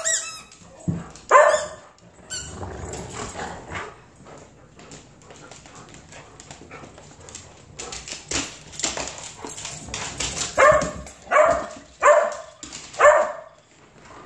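Dogs playing rough, barking in play: one bark about a second in, then four barks roughly a second apart near the end, with scuffling and clicks in between.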